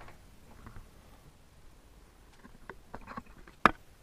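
Quiet handling noises of someone creeping up to a bedside table: a few soft rustles and small clicks, then one sharp click about three and a half seconds in.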